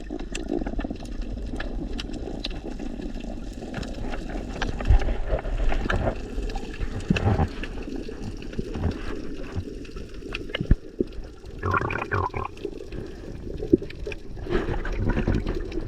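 Muffled underwater water noise around a submerged camera: a steady low rush with scattered clicks and brief bubbling bursts, the clearest about twelve seconds in.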